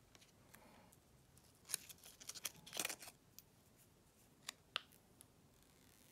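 Hands handling a phone box's paper and cardboard packaging and its cable: about two seconds in, a second of close paper rustling and scraping with small clicks, then two sharp clicks about a second and a half later.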